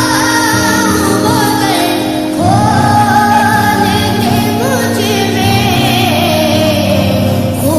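An Islamic devotional song played as a ringtone: one voice singing a winding melody over a steady held drone.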